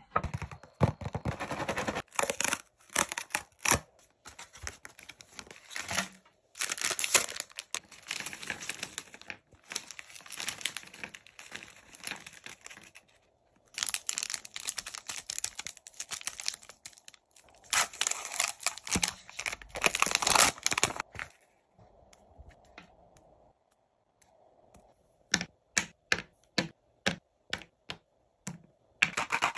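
Plastic and foil sweet wrappers crinkling and tearing as they are opened, in long bursts. Near the end comes a string of light clicks as pieces of chocolate are set down on a wooden platter.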